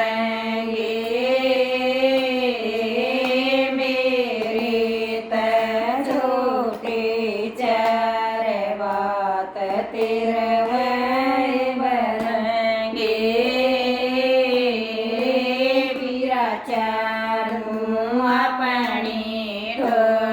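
A woman singing a Haryanvi folk song in long held notes that slide up and down, with no steady beat.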